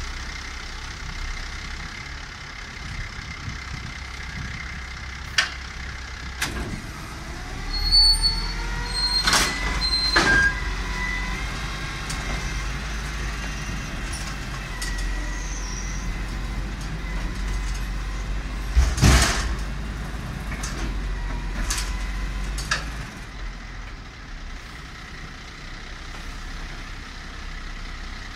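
Side-loading garbage truck's engine and hydraulic loading arm running as the arm empties a street bin and sets it back down, with rising and falling hydraulic whines and several loud metal bangs and clatters, the loudest about two-thirds of the way in. The sound drops off near the end.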